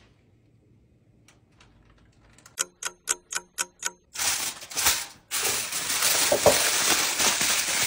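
A clock-ticking sound effect, six sharp ticks about four a second, then about four seconds in aluminium foil crumpled by hand, loud continuous crinkling.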